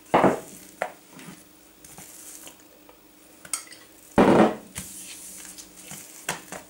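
Gloved hands handling soft yeast dough on a kitchen countertop, with two loud knocks on the counter, one at the start and one about four seconds in, and a few small clicks between, over a faint steady hum.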